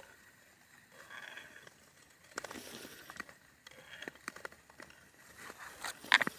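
Ice skate blades gliding and scraping over clear black ice in repeated strokes, each a short ringing hiss, with sharp clicks and pings from the ice; the loudest click comes just after six seconds.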